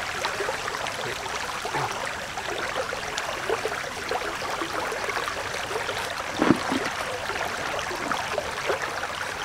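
Shallow stream running over rocks: a steady babble of flowing water. A brief thump stands out about six and a half seconds in.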